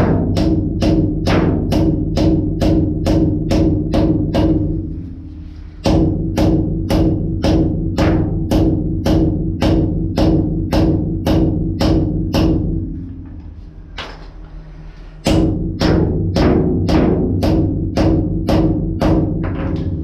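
A hammer driving steel wedge anchor bolts down into adhesive-filled holes in a concrete slab, about three blows a second, each blow ringing with a steady low tone that dies away when the hammering stops. The blows pause briefly about five seconds in and again for a couple of seconds around thirteen seconds in.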